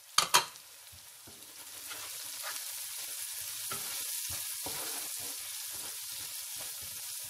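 Onion-and-tomato masala with freshly added ground spices sizzling in a pot and being stirred with a wooden spoon. Two sharp knocks come just after the start, then the sizzle builds from about a second and a half in, with scraping strokes of the spoon.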